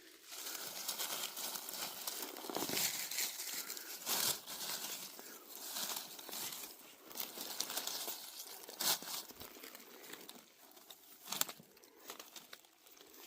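Dry leaf litter crunching and rustling under a forager's movements, an uneven crackle with sharp snaps, louder in stretches.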